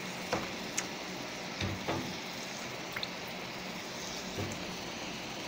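Raw chicken pieces being set down one by one onto a non-stick tawa: about five soft knocks and slaps spread over the first four and a half seconds, over a faint steady hiss.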